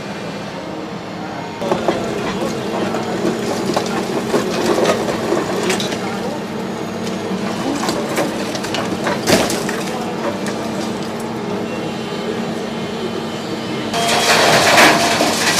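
Long-reach demolition excavator running steadily while its grab crunches into a concrete gable wall, with scattered cracks and knocks of breaking concrete. Near the end a louder rush of noise sets in.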